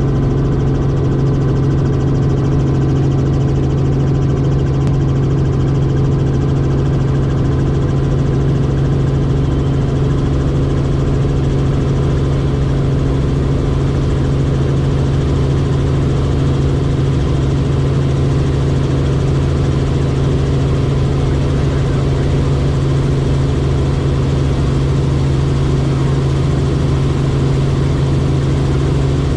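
Robinson R44 helicopter in a climb, heard inside the cabin: a loud, steady drone of its piston engine and main rotor, with a strong low hum.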